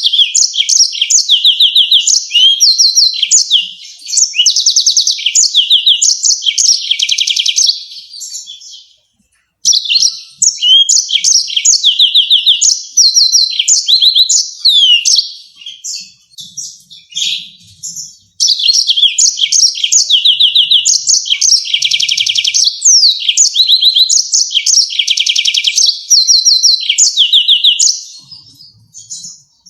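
Yellow-fronted canary singing: fast trills and quick runs of repeated high notes, in three long bouts with short pauses about 9 and 18 seconds in.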